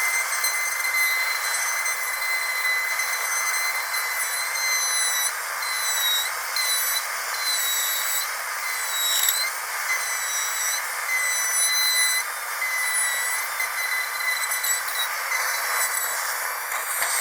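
Dental drill whining steadily at a high pitch over a hiss, its pitch dipping briefly a few times.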